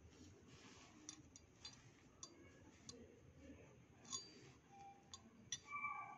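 Faint clicks and light clinks of small silver idols being handled and set down on a cloth, a few scattered taps with the loudest about four seconds in.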